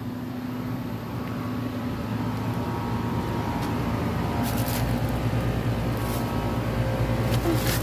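Outdoor air-conditioning condenser units running: a steady electrical hum from the compressors over fan noise, growing a little louder after about two seconds. A few brief scuffs sound over it.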